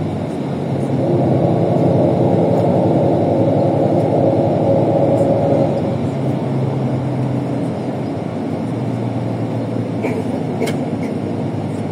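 ALSA bus engine running as the bus drives along; the engine note sits higher for the first half and drops lower after about six seconds.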